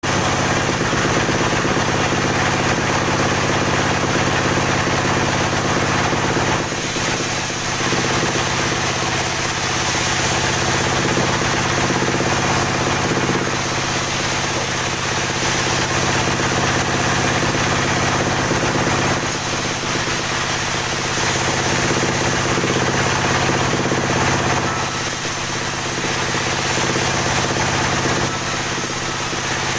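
Sawmill band saw running steadily while sawing a badly crooked log into slabs. A faint high-pitched whine comes and goes about every five or six seconds.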